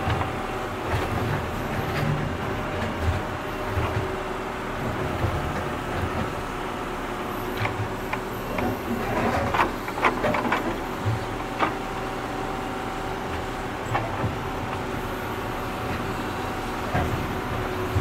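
Crawler excavator's diesel engine running steadily with a steady hum and whine, while the bucket works through brick and concrete rubble; a burst of clattering knocks comes a little past the middle, with single knocks later.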